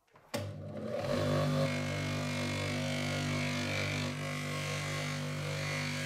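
Bench grinder fitted with a grey abrasive polishing wheel, switched on about a third of a second in and up to speed within a second, then running steadily. A small metal lighter part is held against the spinning wheel, adding a hiss over the motor hum.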